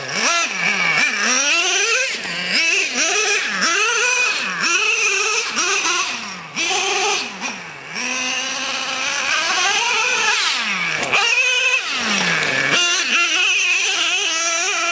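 Traxxas Revo nitro RC monster truck's small engine revving up and down over and over as it is driven, each throttle burst rising and falling in about a second. It eases off to a steadier, quieter note for a moment around the middle.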